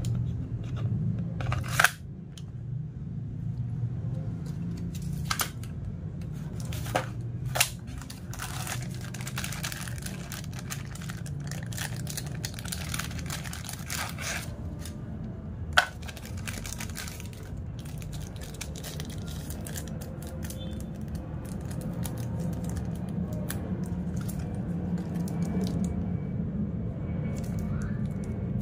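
Handling noise from an airsoft pistol being unboxed. A sharp plastic click about two seconds in as the magazine seats in the grip, a few more clicks, then a clear plastic parts bag crinkling. A steady low hum runs underneath.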